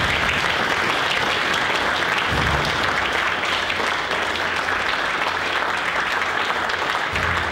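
Audience applauding steadily, a roomful of people clapping, fading away just after the end.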